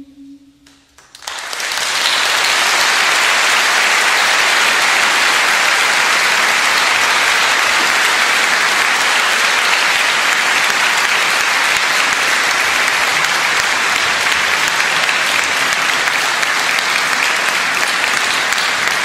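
A large concert audience applauding: the clapping starts about a second in, after a short lull, and then holds steady and loud.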